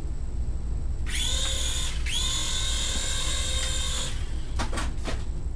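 Small electric rotor motors of a toy remote-control gunship whining as they spin up about a second in, dropping out for a moment, running steadily for about two seconds and then stopping, followed by a few short blips of throttle near the end.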